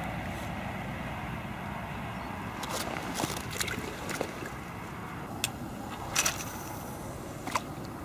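Handling noise from hands and a padded jacket moving close to the microphone: a run of sharp rustles and clicks from about three seconds in, over a steady low outdoor rumble.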